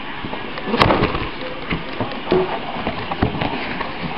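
RC car box packaging being torn and handled open: irregular crackling and rustling with scattered sharp clicks, the loudest a snap about a second in.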